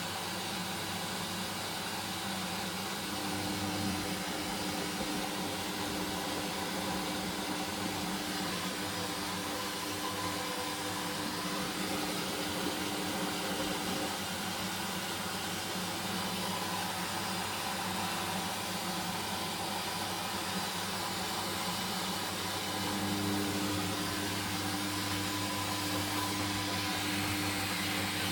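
Hoover Dynamic washing machine running through its second rinse on a blanket load: a steady hum over a hiss, with a faint tone that fades out after about ten seconds and comes back a few seconds before the end.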